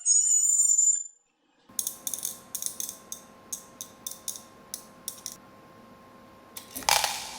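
A small mechanism clicking about a dozen times at an uneven pace over a faint steady hum, followed near the end by a louder rushing burst that fades away.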